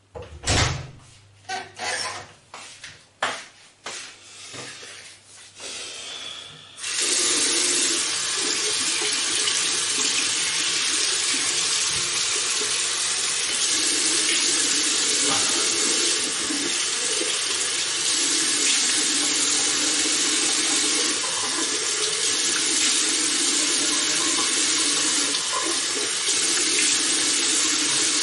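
A few clunks and knocks, then about seven seconds in a tap is turned on and water runs steadily into a sink.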